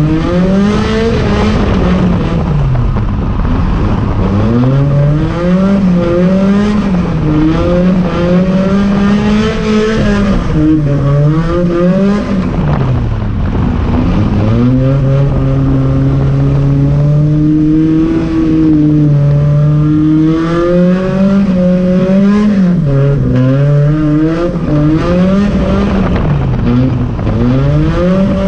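Volvo drift car's engine heard from inside the cabin, revving hard and easing off over and over as it is driven around the track. Its pitch climbs, drops away sharply several times, and climbs again.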